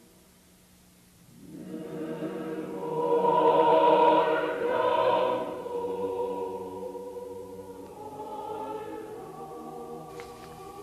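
Choir singing long held chords as title music, rising out of near silence about a second and a half in, swelling to its loudest around four seconds in, then softening.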